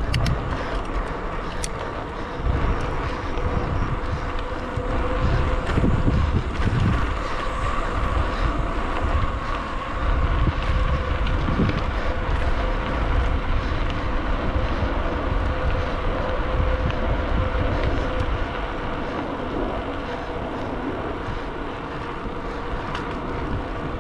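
Wind buffeting the microphone of a handlebar-mounted camera on a moving bicycle, over the steady rumble of its tyres rolling on a concrete trail.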